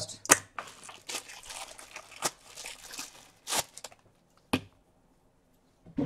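A clear plastic bag crinkling and rustling as SATA cables are pulled out of it, with a few sharp clicks and taps. The rustling stops about four seconds in.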